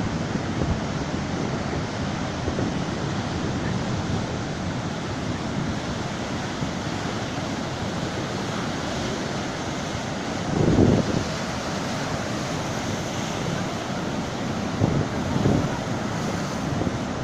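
Mediterranean surf washing in a steady rush, with wind buffeting the microphone in low gusts, the strongest about ten and a half seconds in.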